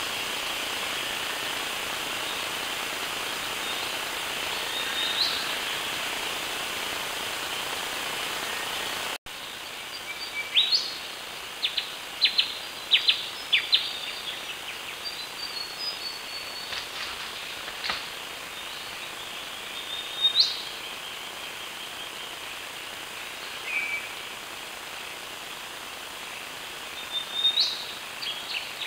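Wild birds calling: several sharp rising whistles and a quick run of chirps over a steady high hiss. For the first nine seconds there is only a denser steady hiss, which cuts off abruptly.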